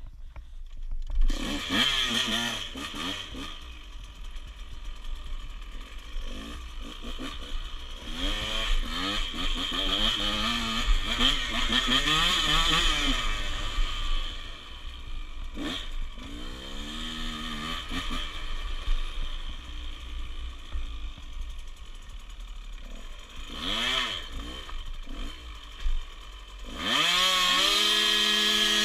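Dirt bike engine revving as it is ridden. The pitch climbs and drops again and again as the throttle opens and closes. It jumps up sharply about a second in, and near the end it settles into a louder, steady held note.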